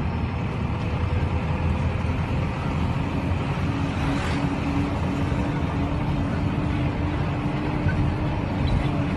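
A motor vehicle running: a steady low rumble with a faint engine hum that rises slightly in pitch.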